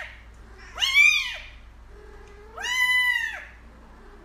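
Kitten meowing: two high calls about two seconds apart, each rising and then falling in pitch, after the end of an earlier call.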